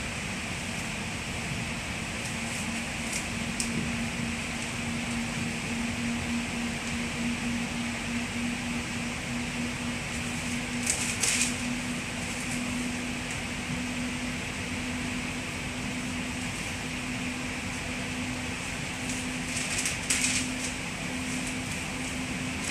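Steady running noise inside a moving passenger train carriage, with a constant hum that creeps slightly up in pitch. There are two brief hisses, about halfway and near the end.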